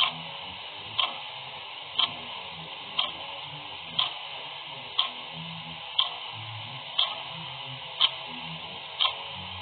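Clock ticking evenly, one sharp tick each second, over a steady faint hiss.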